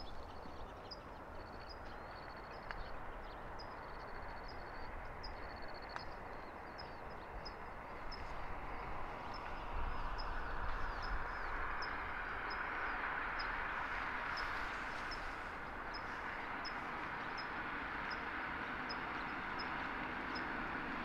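Open-country ambience: a steady wash of distant traffic noise that swells about ten seconds in. Over it, a short high chirp repeats roughly once a second, with a few buzzy high trills in the first several seconds.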